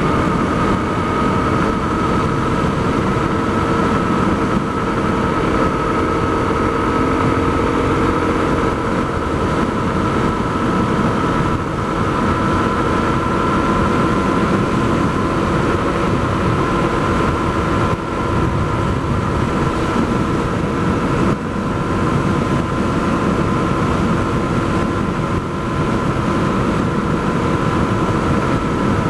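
Honda CRF250L's single-cylinder engine running through an FMF Q4 HEX slip-on exhaust at a steady cruise, with only slight changes in pitch. The loudness dips briefly twice, about two-thirds of the way through. Wind and road noise run beneath the engine.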